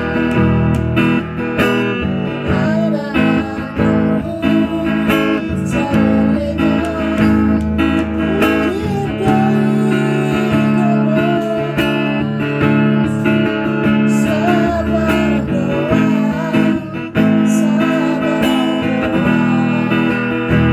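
A voice singing a song over acoustic guitar strumming, in a homemade, unpolished way.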